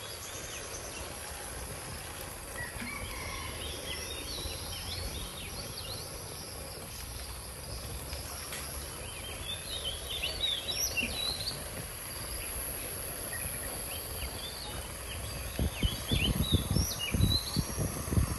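Outdoor rural ambience: birds chirping in short clusters of calls, over a steady high insect drone and a low rumble that grows uneven and louder near the end.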